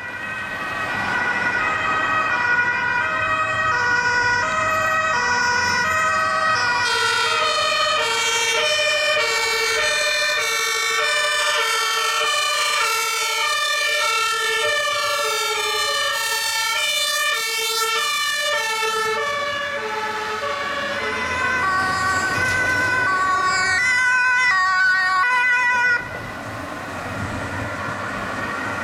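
Several German fire-engine two-tone sirens (Martinshorn) sounding together at different pitches, out of step with one another. From about 20 s in, the tones slide lower as the vehicles pass. Near the end the level drops suddenly, leaving fainter road and engine noise.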